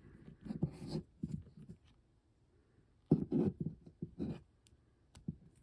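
Small hard-plastic toy pieces being handled: scraping and light clicks as a toy gun accessory is pushed against an action figure's hand, with a louder cluster of knocks and rubbing about three seconds in.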